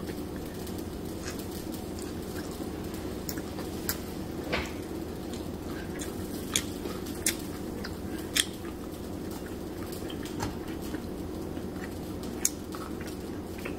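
Close chewing and lip-smacking while eating by hand, with scattered short clicks of fingers and food on a plate, over a steady low hum.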